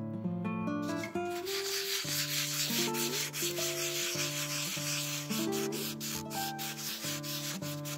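Hand sanding of a carved gesso (levkas) ornament with a small abrasive sponge: quick, uneven back-and-forth rubbing strokes that start about a second in and stop near the end, smoothing the gesso before gilding.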